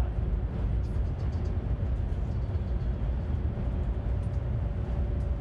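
Steady low rumble of a high-speed bullet train as heard inside the passenger cabin while cruising at close to 300 km/h. A faint steady hum comes in about halfway through.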